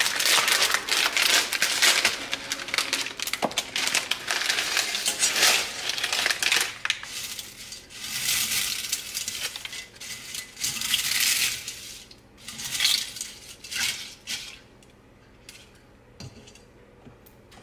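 Dry edamame pasta rattling and clinking out of a crinkly plastic bag into a stainless steel saucepan. The clatter is dense for the first several seconds, then comes in shorter shakes, and dies away near the end.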